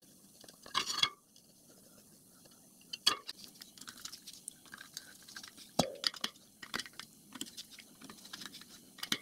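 Light clicks and taps of the e-bike hub motor's side cover and its small fittings being handled and fitted back onto the motor. A brief scrape about a second in, then irregular clicks, the sharpest about six seconds in.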